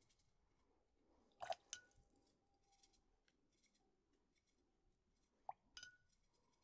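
Near silence broken by two pairs of faint clinks with a short ring, about a second and a half in and near the end: a paintbrush knocking against the glass rinse-water jar.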